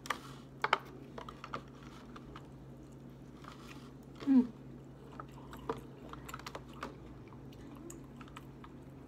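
Close-up chewing of a leafy salad, with a plastic fork clicking and scraping against a clear plastic takeout container. About four seconds in, a louder short sound slides down in pitch.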